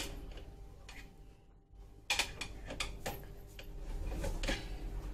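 A series of sharp clicks and knocks of hard objects being handled, with a cluster about two seconds in and more a couple of seconds later.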